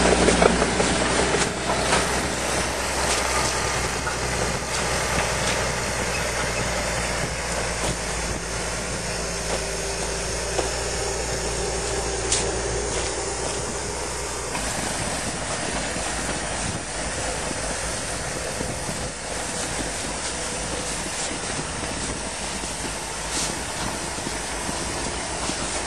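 Engine of a rebuilt Nodwell tracked snow vehicle running steadily, with a broad mechanical rumble and hiss. The steady low engine tone fades about halfway through, leaving a rougher noise.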